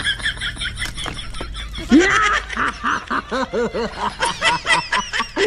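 Laughter in a fast run of short, evenly repeated bursts, growing louder about two seconds in.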